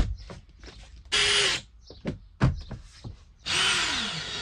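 Power drill driving screws into a van's rear-door trim panel: a short burst about a second in, then a longer run of about a second and a half near the end, with a few sharp knocks in between.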